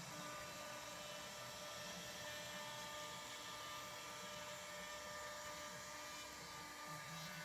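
CNC router spindle running steadily, a constant whir with several held tones and no breaks.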